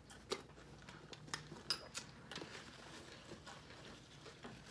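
Spoons clinking against cereal bowls: several faint, separate clicks as cereal and milk are scooped up.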